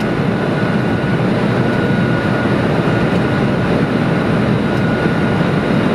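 Steady rushing noise in the flight deck of a Boeing 747-400 on final approach: air flowing over the nose and windshield mixed with the drone of the engines. A faint high whine comes and goes in the background.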